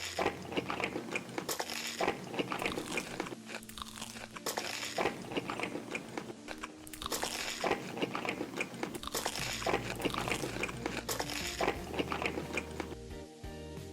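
Close-up crunchy chewing and biting: a person eating crisp food, with a rapid, irregular run of crunches throughout.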